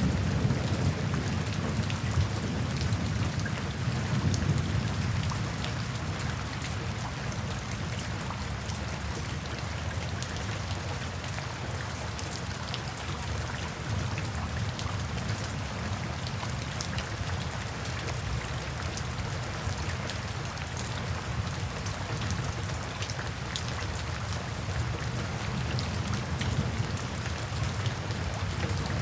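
Steady rain with many separate drops striking, under light thunder: a low rumble fades over the first few seconds and builds again near the end.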